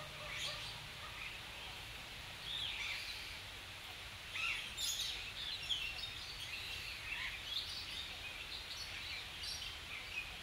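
Marsh ambience: many short bird chirps and calls scattered throughout, over a faint steady background hiss.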